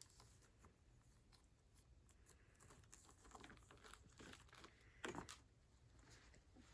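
Near silence with faint rustling and scattered soft clicks, and a brief louder rustle about five seconds in.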